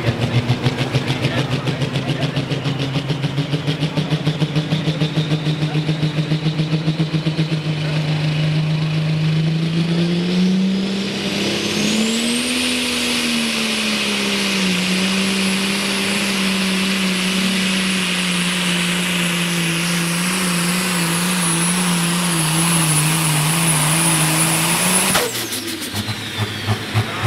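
Pulling tractor's engine on a pull: it pulses at lower revs, then winds up about ten seconds in as a high whine rises and holds. It runs hard and steady for about thirteen seconds, then cuts off suddenly near the end, dropping back to a pulsing idle.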